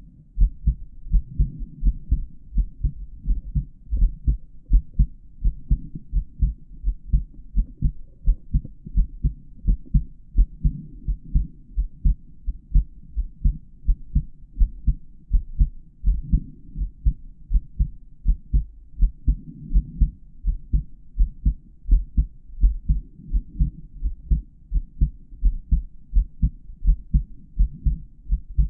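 A man's heartbeat heard through a stethoscope: a steady run of low lub-dub thumps, recorded from a microphone inside the earpieces.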